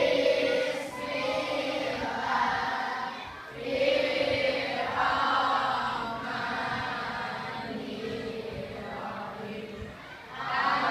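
A class of schoolchildren singing together in unison, in held, pitched phrases of one to three seconds.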